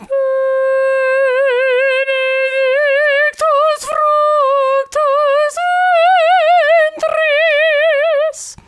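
Solo female vocal singing long, high held notes with vibrato, unaccompanied, with sharp breaths between phrases, played back through a compressor plugin.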